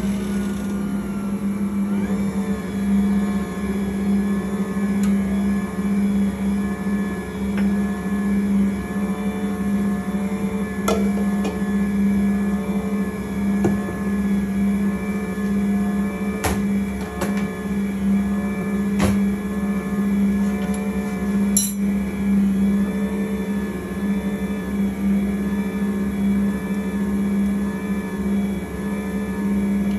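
Ankarsrum Original Assistant stand mixer running steadily, turning its stainless steel bowl of water and yeast with a steady low hum. A few light clicks sound over it partway through.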